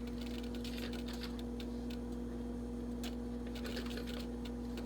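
Light, scattered clicks and taps of spice containers and a measuring spoon being handled while seasonings are measured in, over a steady low electrical hum.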